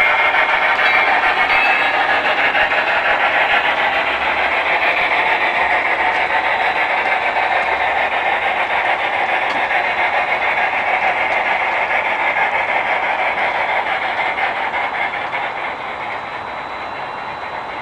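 Large-scale model train running over hand-spiked track and through a newly built turnout: a steady rolling noise of wheels on rails and the locomotive's drive, growing quieter about fifteen seconds in as the train moves away.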